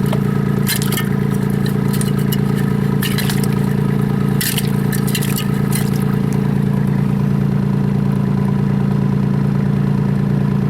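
Excavator's diesel engine running at a steady speed. Scattered sharp clicks and scrapes come over it during the first six seconds or so, then stop.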